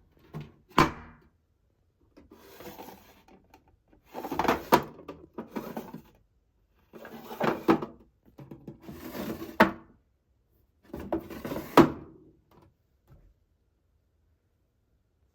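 Short separate bursts of handling noise, each with a sharp knock or thunk amid rubbing, about five in all with dead silence between them.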